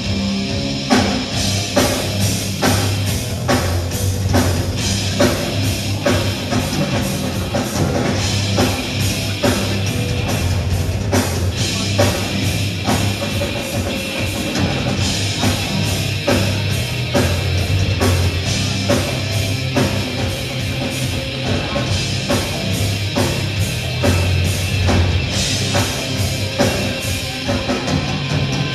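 Live rock band playing loud and continuous: distorted electric guitars and bass over a drum kit with steady, rapid hits, heard from the audience in a club.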